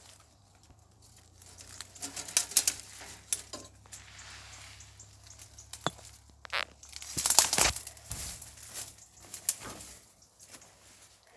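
Dry twigs and branches rustling, crackling and snapping as people push through dense undergrowth. Irregular crackles and sharp snaps, busiest about two seconds in and again around seven seconds in.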